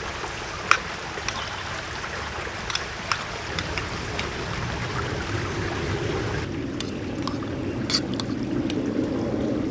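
Small clinks and taps of camp cookware being handled, over a steady rushing noise that turns lower and a little louder about two-thirds of the way in.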